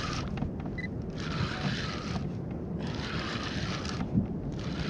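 Wind rumbling on the microphone over open sea, with a hissing wash that swells and fades about every second and a half, and one sharp knock about four seconds in.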